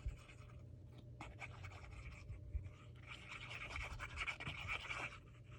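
Faint scratching and rustling of paper being handled at a craft table, a little busier in the second half, with a few light ticks over a low steady hum.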